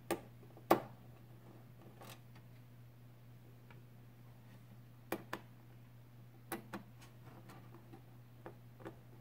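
A small screwdriver unscrewing the screws from the plastic underside of a DVR case: scattered sharp clicks and taps of metal on plastic, about nine in all, the loudest about a second in. A steady low hum runs underneath.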